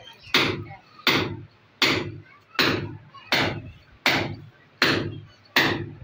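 A steady run of sharp knocks, about one every three-quarters of a second, each ringing out briefly.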